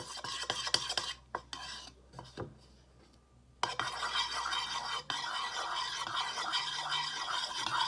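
Paintbrush stirring crepe paper dye in water in a bowl: quick clicks of the brush against the bowl for the first second or so, a short lull, then steady swishing and scraping from about halfway through.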